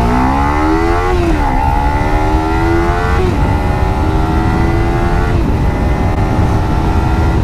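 Kawasaki Z300 parallel-twin on its stock exhaust accelerating hard from a standstill toward 100 km/h. The engine note climbs in each gear, with upshifts about one, three and five and a half seconds in, over rushing wind noise.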